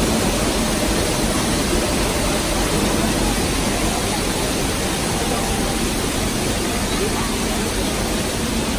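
Steady rushing of water from a staged flash-flood special effect, pouring out of pipes and cascading down artificial rock.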